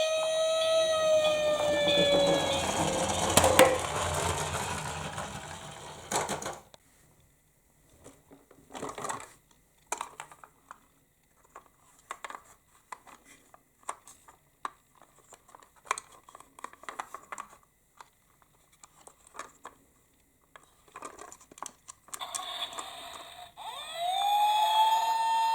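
Electronic siren of a toy emergency-vehicle minicar sliding down in pitch and fading over the first few seconds, with a sharp click about three and a half seconds in. Then a long quiet stretch of faint scattered clicks and knocks, until another toy siren starts with a rising tone near the end.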